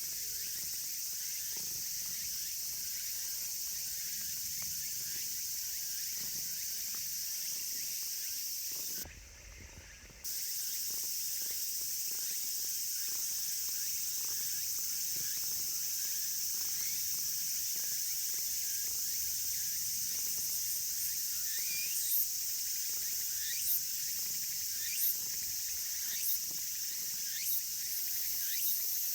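Steady high-pitched insect chorus. From about two-thirds of the way in, short rising chirps repeat roughly every second and a half over it, and the chorus briefly cuts out about nine seconds in.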